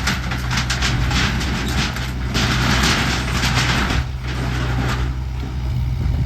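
Kubota excavator's diesel engine running steadily under load while its bucket crunches and drags shed debris, with a dense clatter of breaking and scraping material, heaviest about two to four seconds in.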